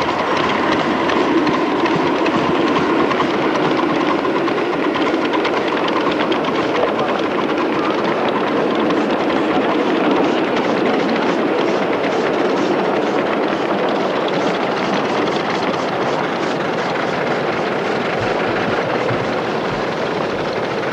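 Small ride-on live-steam locomotive hauling a train of riders past, with a steady, noisy running sound of exhaust and wheels on the rails.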